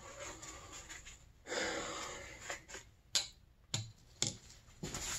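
Faint handling sounds of work on an engine: a soft rustle, then three light clicks about half a second apart.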